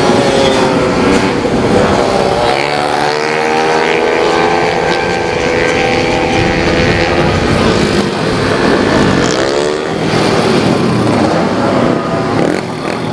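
Racing scooter engines at high revs as bikes pass on the track, their pitch rising and falling as they go by.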